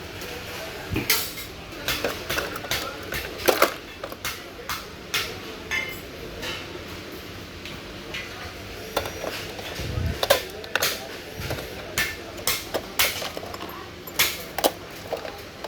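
Metal parts and tools clinking and knocking irregularly while a computer is taken apart.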